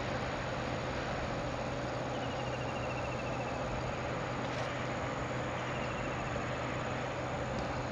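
Steady outdoor background hiss with a constant low hum, broken by two faint, short descending trills, one about two seconds in and one about five and a half seconds in.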